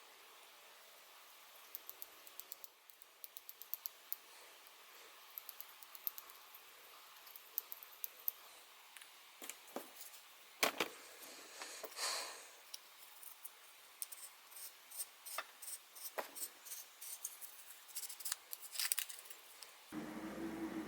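Small brass lantern parts clicking and clinking as they are handled during metal polishing, with a brief rubbing sound about twelve seconds in. A louder, steadier sound comes in just before the end.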